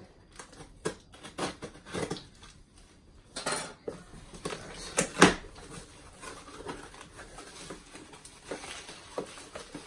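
Brown paper mailer bag being torn open and handled: scattered crinkling and rustling, with sharper rips about three and a half seconds in and again around five seconds.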